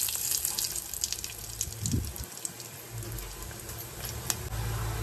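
Curry leaves, mustard seeds and cumin sizzling in hot oil in a kadai, a hiss scattered with sharp little pops that gradually dies down: the tempering (thalippu) spluttering as the leaves go in.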